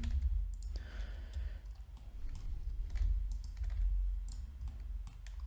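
Scattered computer mouse clicks, scroll-wheel ticks and keyboard key presses while working in a 3D program, over a low steady hum.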